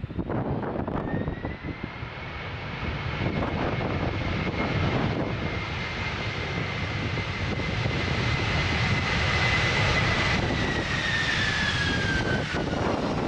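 Jet airliner on landing approach passing low overhead. Its engine whine sets in about a second in and holds steady, then falls in pitch over the last few seconds as it goes by, over a loud engine rumble. Wind buffets the microphone at the start.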